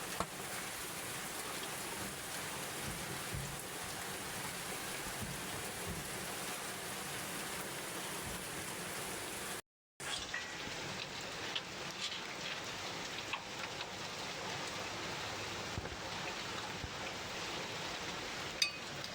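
Steady rain falling, cut off for a split second about halfway through, with a few faint clicks after.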